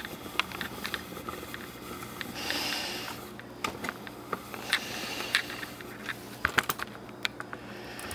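Handling noise from a camera being lowered and repositioned: scattered small clicks and knocks. Two hissy breaths through a gas-mask respirator come about two and a half and five seconds in.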